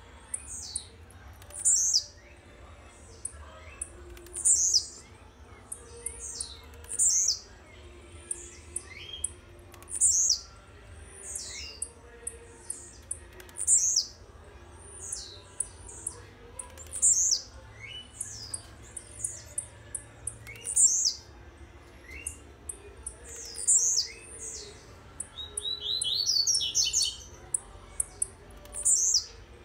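Caged blue-black grassquit (tiziu) singing its short, high, downward-sweeping song note, repeated every second or two with faint high ticks between. Near the end comes a brief flurry of lower, quicker chirps.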